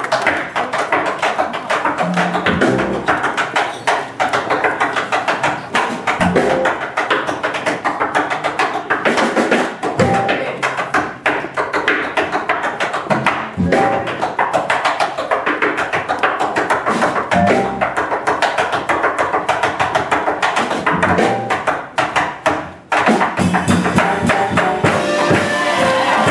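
Live jazz combo music carried by drums and percussion: a dense stream of rapid hits with a low note recurring every few seconds. Near the end, sustained horn or voice notes come in over the rhythm.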